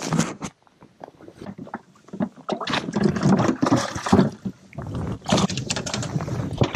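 Handling noise as a caught bass is clipped with a cull tag and put into the boat's livewell: a run of clicks, knocks and rustling, busiest from about two and a half seconds in.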